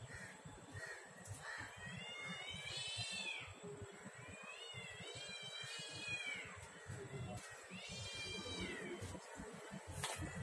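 An animal crying three times, each a long, high, wavering cry that rises and then falls in pitch.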